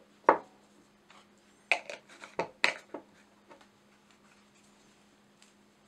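Small glass jar being handled and its plastic screw lid put on and twisted shut. A sharp knock comes about a quarter second in, then a quick run of clicks and knocks from about two to three seconds in.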